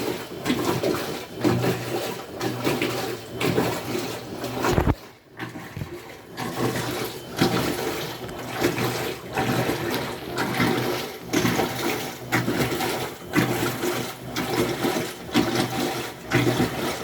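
Washing machine agitating a drum full of water: rhythmic swishing and sloshing strokes about twice a second, with a short thump and a brief pause about five seconds in.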